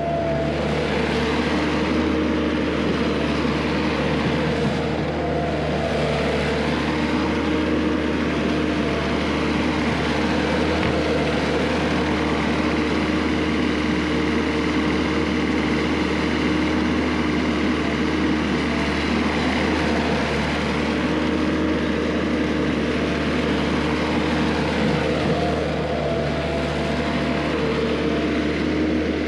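Skid steer engine running steadily under work, a constant pitched drone with a mechanical rush over it.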